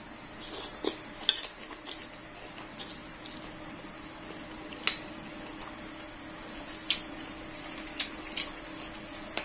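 Crickets chirring steadily and high in the background, with scattered short clicks and taps from eating: a fork against a metal tray and the smacks of chewing noodles.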